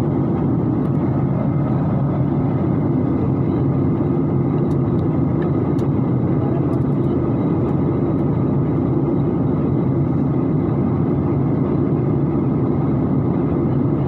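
Steady roar of a jet airliner's engines and airflow, heard inside the passenger cabin while cruising or climbing through cloud.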